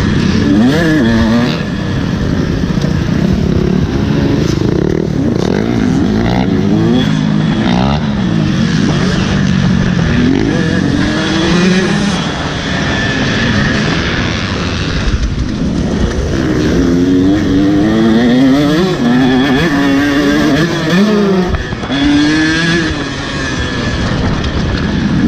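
Dirt bike engine on a motocross track, revving up and falling off again and again as the rider works the throttle and gears, with heavy wind rumble on the microphone.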